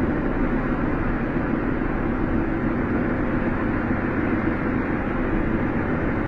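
Steady running noise of a Moscow Metro train in motion, heard from inside the carriage.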